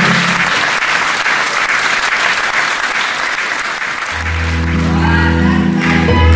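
Audience applauding; about four seconds in, music with slow sustained chords starts up under the clapping.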